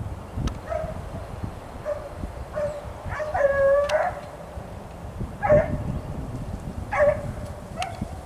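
Hunting hound giving tongue on a hare's trail: a few short yelps, a longer drawn-out bay about three seconds in, then sharp barks at about five and a half and seven seconds.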